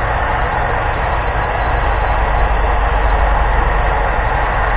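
A steady, loud rushing noise, like a blower running without a break, most likely the heat gun used to soften PVC pipe for shaping.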